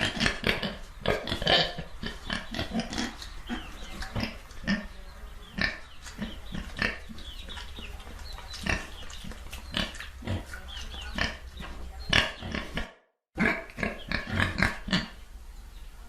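A domestic pig grunting and oinking in many short, irregular grunts, with a brief cut to total silence about thirteen seconds in.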